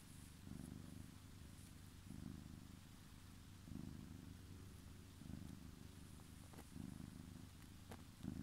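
Domestic cat purring, a quiet low rumble that swells and eases with each breath about every one and a half seconds.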